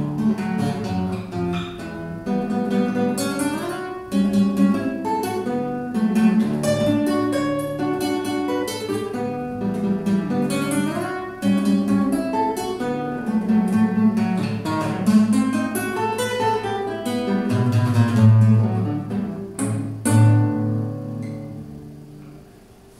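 Solo nylon-string classical guitar, a plucked melody over bass notes; near the end the playing stops and the last notes ring and fade out.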